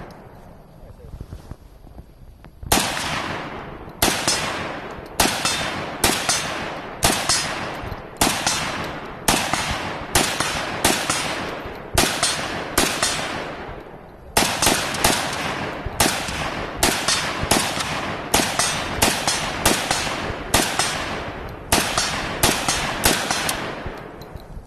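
AK-47 rifle fired in a long string of single shots, roughly one every half second to a second, each a sharp crack with a trailing echo. The firing begins a few seconds in.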